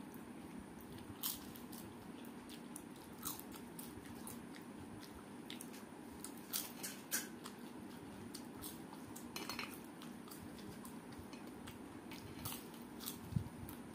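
Crisp fried papad crunching as it is broken over a steel plate and bitten, with chewing; sharp, irregular crunches spaced a second or more apart.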